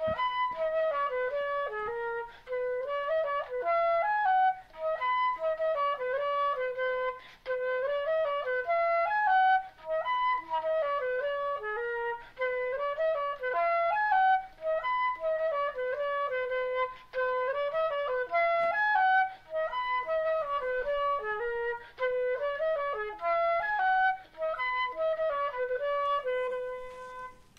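Instrumental music: a single melody line played in short phrases with brief pauses between them, ending on a held note near the end.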